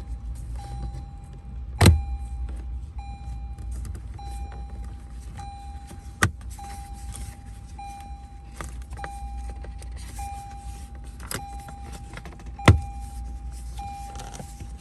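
Sharp plastic snaps and clicks as a dashboard trim panel is pried loose with a plastic panel removal tool: four in all, the loudest about two seconds in and near the end. Under them a car's electronic warning chime beeps steadily over and over.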